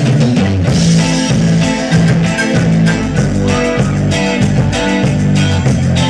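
Live rock band playing: electric guitar, bass and keyboards over a steady drum-kit beat.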